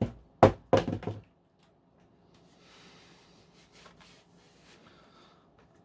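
A few sharp hard-plastic knocks and clicks within the first second or so as parts of a Dyson V10 cordless vacuum are handled, then faint rubbing and handling sounds.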